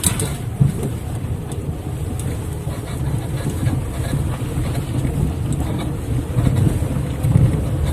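Lada Vesta on the move: a steady low rumble with a faint steady hum and a few faint ticks, the noise in which the owner is hunting an unidentified squeak.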